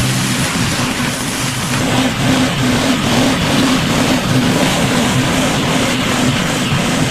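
Pressure washer running steadily: an engine hum under the loud, even hiss of the water jet spraying onto a driveway.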